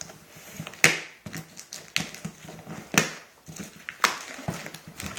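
A knife slicing through the packing tape and cardboard of a parcel box, in four sharp strokes about a second apart.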